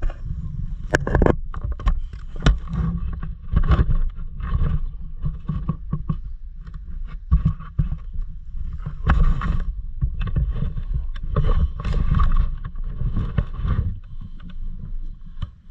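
A steady low rumble with many irregular knocks and clicks.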